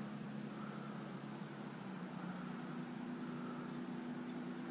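Faint outdoor ambience: a steady low hum with a few faint, high chirps scattered through it.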